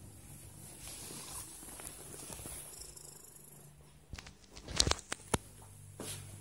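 A domestic cat making a soft, purr-like vocalization, then several sharp clicks about four to five seconds in, the loudest of them near five seconds.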